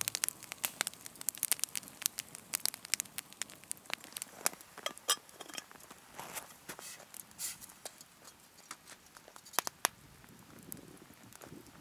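Wood fire crackling, with many sharp pops that are thickest in the first half and grow sparser later.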